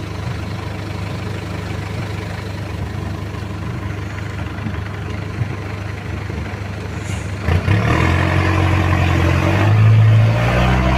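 A vehicle engine running steadily, then picking up revs and getting louder about seven and a half seconds in, loudest near the end.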